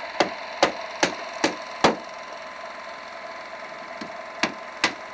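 Sharp, evenly spaced knocks, about two and a half a second: a run of five, a pause, then three more near the end, over a steady electrical hum.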